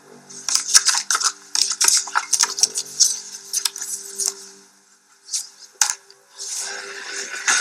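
Glossy photo prints being shuffled and slid over one another on a desk: quick crisp rustles and slaps, busiest in the first four seconds and quieter after. Faint steady low tones sit underneath.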